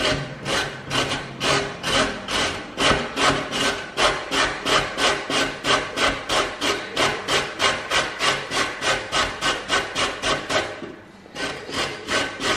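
Carrot being grated on the coarse side of a stainless-steel box grater standing on a wooden board: steady rasping strokes, about three a second, with a short break near the end before a few more strokes.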